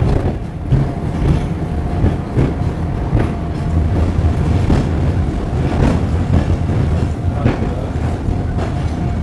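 Funicular tram car running downhill on its rails: a steady low rumble with a faint steady whine, and repeated clacks from the wheels on the track.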